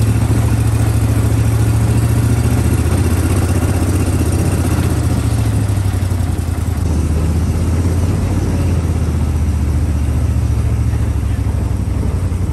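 Gator Tail surface-drive mud motor on a crawfish skiff running steadily under way, a loud low engine drone; the engine note drops slightly about halfway through.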